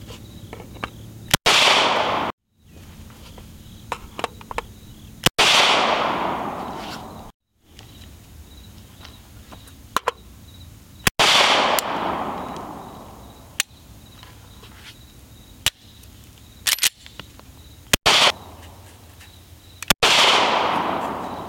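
About five pistol shots from a Glock-pattern handgun, spaced a few seconds apart, each with a long fading echo, with lighter metallic clicks between them. The pistol is fired with a 30-round AR magazine held against the slide to induce malfunctions under full power.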